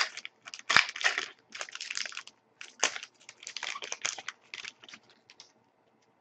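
Trading cards and a foil card-pack wrapper being handled. There are quick, irregular bursts of crisp rustling, with sharp clicks of card stock, and they thin out after about five seconds.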